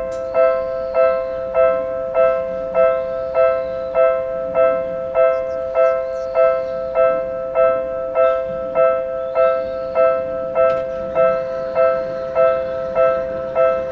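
Japanese railway level-crossing warning bell ringing: an electronic two-tone 'kan-kan' chime struck over and over, a little under twice a second, the signal that a train is approaching the crossing.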